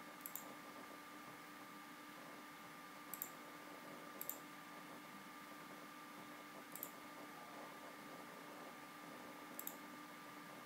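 Five faint computer mouse clicks, each a quick double tick, spaced a few seconds apart over a steady low hiss and hum.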